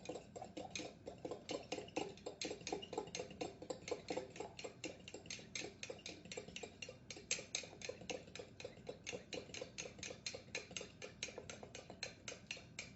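Eggs being beaten in a Pampered Chef plastic microwave egg cooker: a utensil taps steadily and quickly against the cooker, about five or six clicks a second.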